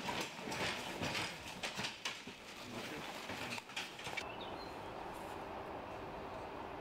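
Plastic body bags rustling, with scrapes and knocks as they are handled and lifted down. After about four seconds this gives way to a steady background noise.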